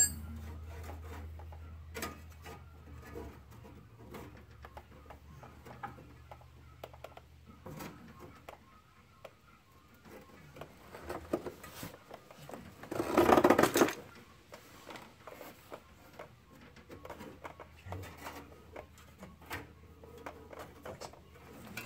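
Small clicks and taps of a thin metal brake line being handled and fed along a car's underbody, with one louder rough scraping noise lasting about a second midway through. A low hum fades out over the first several seconds.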